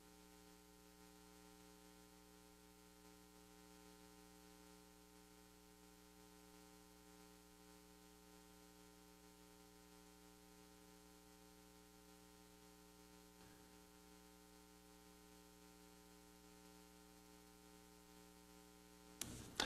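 Near silence with a faint, steady electrical mains hum made of several pitches at once.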